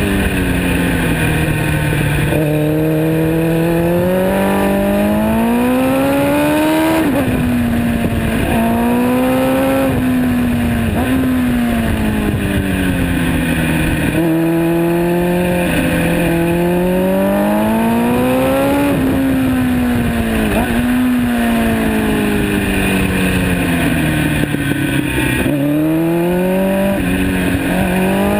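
MV Agusta Brutale motorcycle engine heard through a Termignoni exhaust, close to the silencer, while riding. The engine pitch climbs and falls repeatedly as the rider accelerates, changes gear and eases off, over steady wind and road noise.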